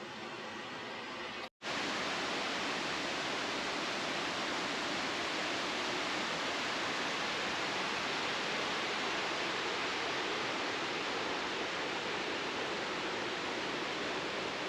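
A waterfall's steady rush of falling water. It cuts out for a moment about a second and a half in, then comes back louder and holds steady.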